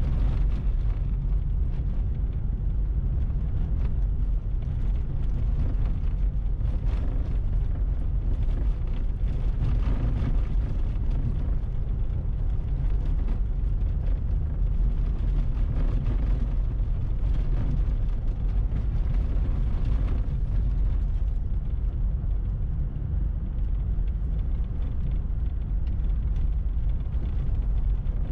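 Steady low rumble of a vehicle driving on a packed-snow road at about 30–45 km/h: tyre and engine noise.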